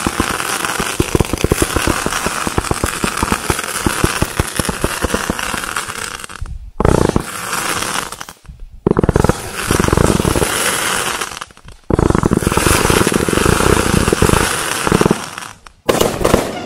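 Swinenado 500-gram firework cake firing: a dense, fast crackling for about the first six seconds, then several loud stretches of heavier bursting and crackle, each broken off by a sudden brief drop.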